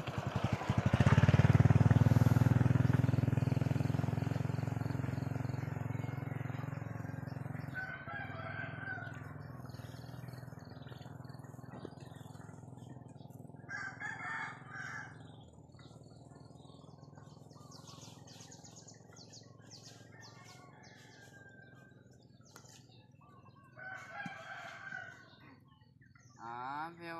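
Roosters crowing several times, a call each about a third of the way in, halfway, and near the end, with small birds chirping. At first a motor vehicle's low rumble is the loudest sound, fading away over several seconds.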